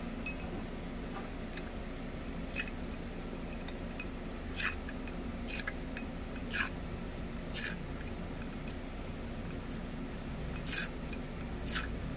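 Small sharp clicks, roughly one a second, over a steady low hum.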